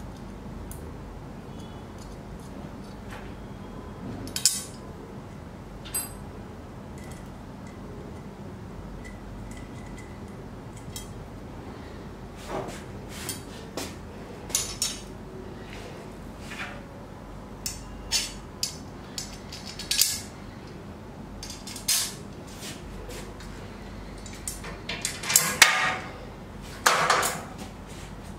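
Steel angle brackets and a hex key clinking and knocking against a steel CNC router leg frame as the brackets are fitted and bolted on: scattered sharp metallic clicks, with two longer, louder rattles near the end.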